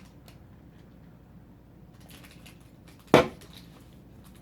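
Faint rustling and small clicks of booster packs and dice being handled, then one sharp knock about three seconds in, like something set down hard on the table.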